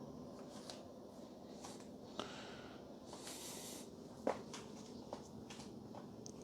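Quiet room tone with two faint clicks, about two and four seconds in, and a brief soft hiss a little after three seconds.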